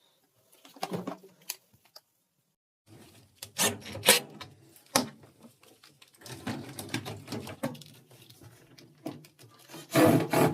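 Irregular knocks, clicks and rattling of plastic parts as a washing machine's drain pump and its hoses are handled during the pump swap, with a louder clatter about four seconds in and again near the end.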